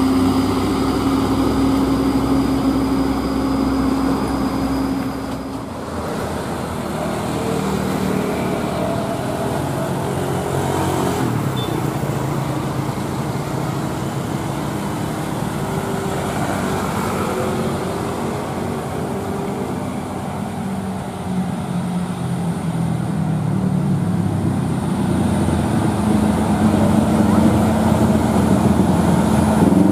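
Diesel engine of a loaded Mitsubishi Canter dump truck running as it drives by, a steady drone that breaks off about five seconds in. Then road traffic of trucks and motorcycles, the engine sound growing louder near the end as another Canter dump truck draws closer.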